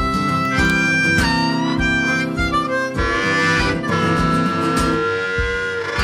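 Background music: a harmonica playing long held notes over guitar.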